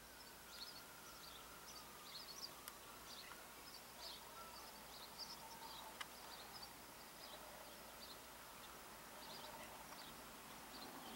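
Faint chirping of small birds: many short, high chirps scattered through, over a quiet outdoor background.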